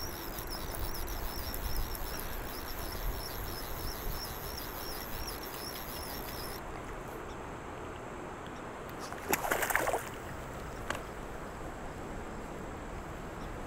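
Insects trill in a fast, even pulse over a steady rumble of wind and water; the insect song cuts off suddenly about halfway through. A short, louder sound comes about two-thirds of the way in.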